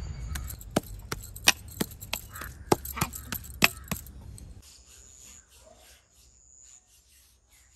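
A hand kneading and pressing minced chicken kabab mixture in a steel bowl, with about ten sharp clicks over a low rumble. About halfway through it stops suddenly and only a faint steady high tone remains.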